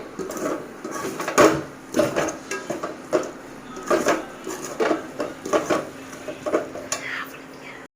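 Cooking spoon scraping and knocking against a pot while stirring spiced masala into fried tomato and onion, in repeated short strokes roughly twice a second.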